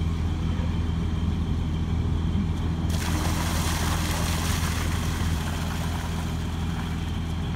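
Fire engine idling with a steady low hum. About three seconds in, a fire hydrant is opened and flushed: water bursts from an open outlet in a loud rushing hiss, easing after about two seconds as the flow drops.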